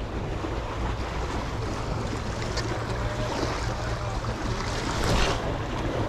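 Strong wind buffeting the microphone over the wash of sea waves against the breakwater, a steady rushing noise that swells about five seconds in.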